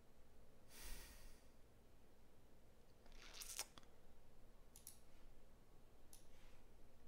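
Near silence: room tone, with a few faint rustles and clicks about a second in and again between three and six seconds in.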